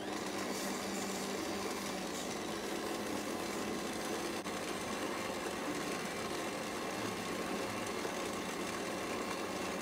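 Kenwood stand mixer's motor starting up and running steadily, its flat beater creaming butter with white and brown sugar in a stainless steel bowl.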